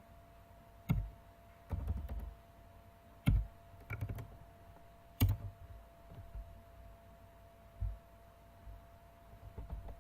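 Computer keyboard being typed on in scattered keystrokes, a few taps at a time with pauses between, over a faint steady tone.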